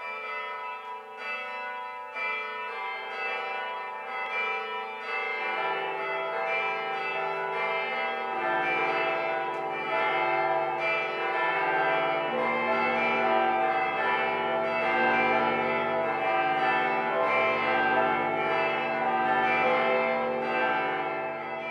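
Church bells ringing in a peal: many bells struck over and over, their rings overlapping. Deeper bells join in partway through and the sound grows louder.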